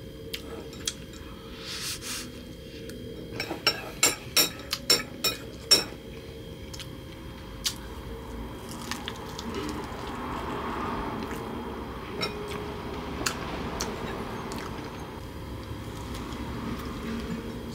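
A metal spoon clinking against a plate: a quick run of sharp clinks a few seconds in, then a few scattered clinks over low room noise.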